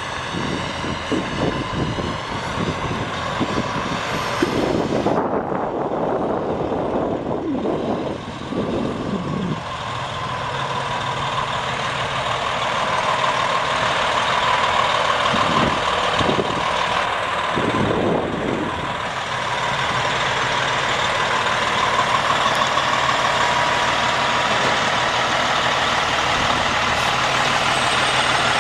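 Freightliner Columbia semi tractor's Detroit Diesel Series 60 12.7-litre inline-six turbo diesel running as the truck drives and manoeuvres. A steady high whine is present through the second half, and the sound gets louder near the end as the truck passes close by.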